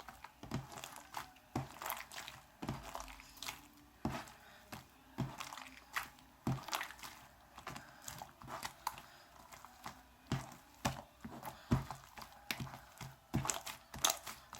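Slime being kneaded and stretched by hand: irregular sticky clicks, pops and crackles, a few each second.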